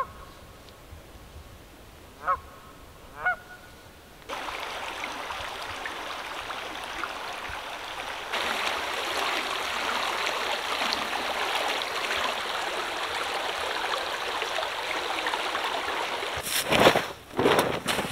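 Three short honking calls, like geese, in the first few seconds. Then a steady rush of a flowing creek, louder after about eight seconds. Near the end come a few loud swishes and flaps of a wool blanket being shaken out.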